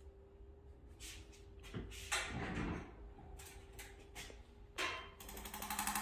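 Soft knocks and rustling of hands and the table sheet, then, about five seconds in, an Arthrostim handheld adjusting instrument starts up on the lower back: a rapid, even mechanical tapping with a steady hum underneath.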